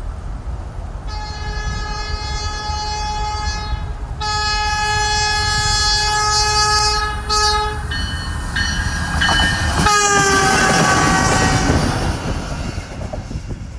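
NJ Transit River Line Stadler GTW diesel light-rail car sounding its horn: a long blast, a short break, then a second long blast, followed by the train rumbling close past with the horn's pitch dropping as it goes by.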